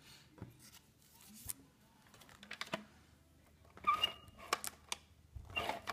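Light handling noises of paper crafting: scattered small taps, clicks and rustles as cardstock pieces are moved about on a cutting mat, with a louder clatter about four seconds in and another near the end.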